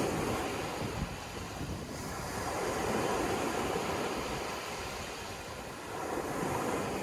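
Sea waves breaking and washing in, the surf swelling and ebbing every few seconds, with wind rumbling on the microphone.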